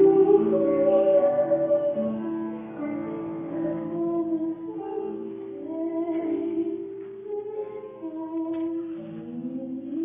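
Female solo voice singing a choir solo in long held notes, with instrumental accompaniment underneath.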